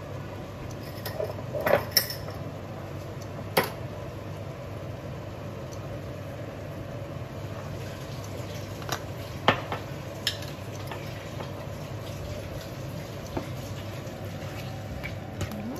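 Tomatoes and scrambled egg simmering in liquid in a frying pan, a steady low bubbling hum with a handful of sharp clicks, the loudest about two seconds in and again about nine and a half seconds in.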